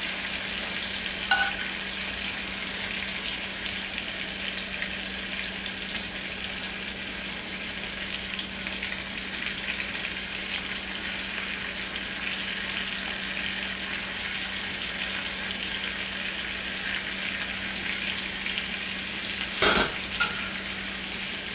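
Chicken frying in a cast-iron skillet, a steady sizzle as tomato-garlic sauce is spooned over it. A metal spoon clinks once about a second in, and a louder clank of cookware comes near the end.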